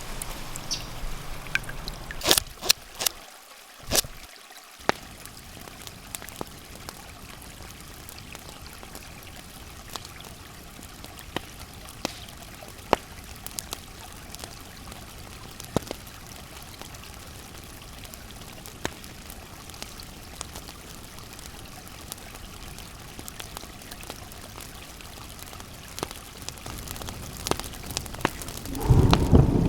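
Water trickling and flowing steadily, with scattered sharp clicks and taps. A loud low rumble starts near the end.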